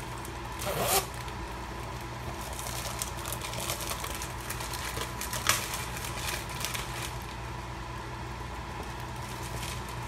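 Plastic packaging of tortilla wraps rustling and crinkling as it is opened and handled, with a louder crinkle just under a second in and a sharp click about five and a half seconds in, over a steady low hum.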